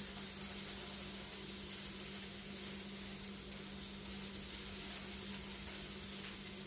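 Steady background hiss with a constant low hum underneath.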